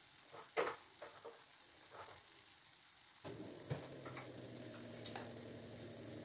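Chicken simmering in a pan, sizzling faintly, with a few soft clicks. A little over three seconds in, a steady mechanical hum with a low drone starts and keeps going.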